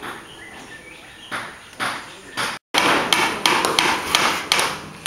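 Hammering on a house construction site: a few spaced blows, then after a brief dropout about two and a half seconds in, quicker, louder blows at about three a second.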